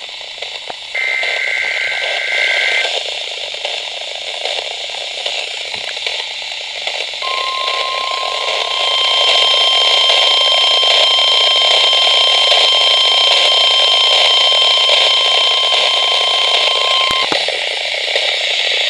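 NOAA Weather Radio alert heard through heavy static from poor reception. It opens with a short warbling burst of SAME data tones. Then the steady 1050 Hz warning alarm tone sounds for about ten seconds, with a higher tone joining it, and both cut off shortly before the end.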